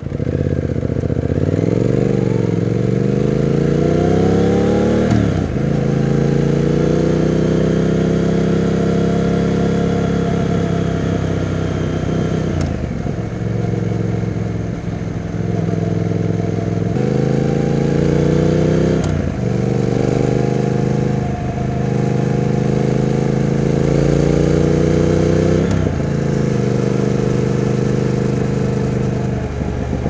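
Triumph Speed Twin 1200's parallel-twin engine riding through the gears. Its pitch rises as it pulls away and drops briefly at each gear change, about five times, with stretches of steady running between.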